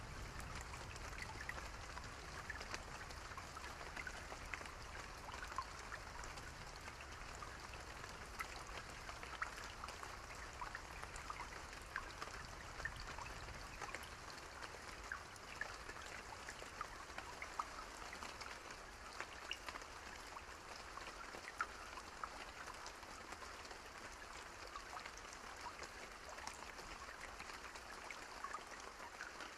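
Steady rain: a soft, even hiss of rainfall with many small drop ticks pattering on a surface.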